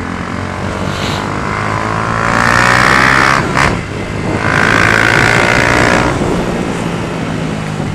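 Motorcycle single-cylinder engine under way through a Gemoto Racing sport exhaust, the engine bored out with a 4 mm kit. It runs steadily, grows louder twice and dips briefly in between.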